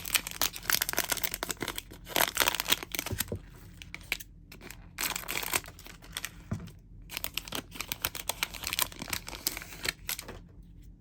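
A foil trading-card hanger pack being torn open and its wrapper crinkled, a stream of irregular crackling that comes in clusters and dies down near the end.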